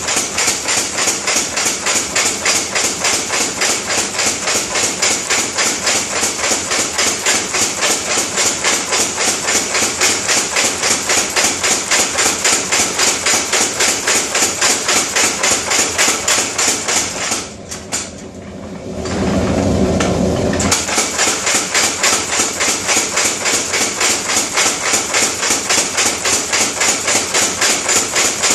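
Mechanical power hammer forging hot steel, its ram striking in a rapid, steady rhythm. The strikes stop about seventeen seconds in for roughly three seconds, with a lower, steady noise in the gap, then resume at the same pace.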